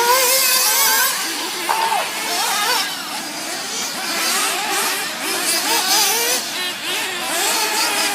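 Several nitro-powered RC off-road buggies racing, their small high-revving engines buzzing and rising and falling in pitch as they accelerate and back off around the track.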